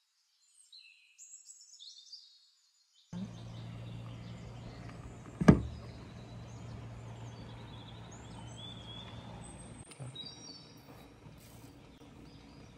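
Small birds chirping and twittering, first over near silence and then over a steady low hum that starts about three seconds in. A single sharp knock about five and a half seconds in is the loudest sound.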